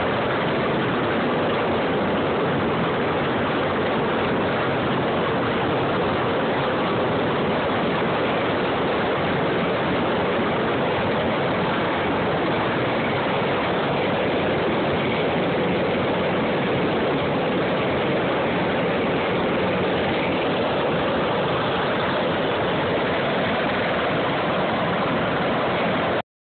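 Steady, loud roar of heavy CH-53-type military helicopters running on the ramp: turbine engines and rotors turning, with no change in level. The sound cuts off suddenly near the end.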